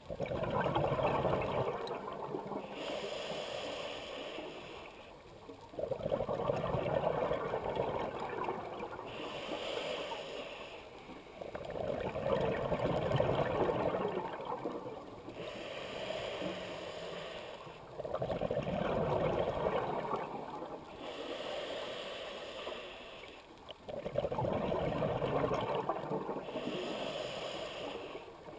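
Scuba diver breathing through a regulator underwater. Each breath is a sudden burst of bubbling exhaust followed by a hissing inhale, repeating about every six seconds, five times over.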